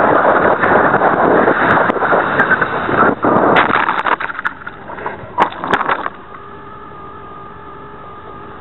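Super Cub LP RC airplane crashing, heard through its onboard camera: loud wind and motor rush, then a series of knocks and clatters about three and a half to six seconds in as it hits and tumbles. After that only a quieter steady hum of several tones remains as it lies in the grass.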